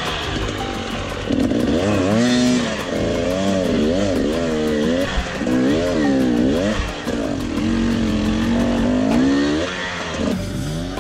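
Husqvarna TE250 enduro motorcycle engine revving up and falling back over and over as it is ridden off-road. The pitch climbs and drops about once a second, and it eases off near the end.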